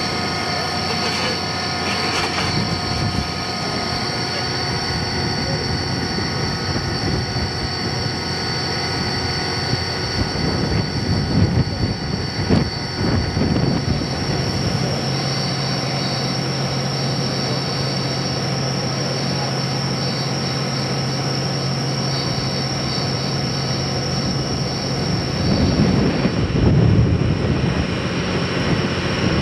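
Steam locomotive D51 200 running on the line. Its sound swells about eleven seconds in and again near the end, over a steady high-pitched drone.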